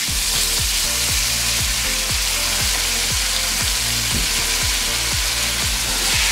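Beef short ribs sizzling steadily as they sear in hot lard in a cast iron pot.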